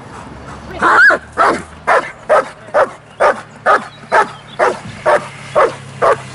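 German shepherd barking at a helper standing in a training blind, the bark-and-hold guarding exercise of protection work. The loud, even barks start about a second in and come about twice a second.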